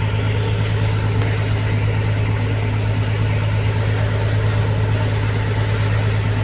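A boat's engine running steadily at constant speed, a continuous low hum with a noisy wash over it.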